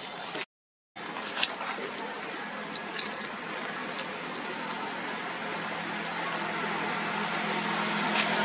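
A steady, high-pitched insect drone from the surrounding forest, broken by a short gap of total silence about half a second in, with a few faint clicks.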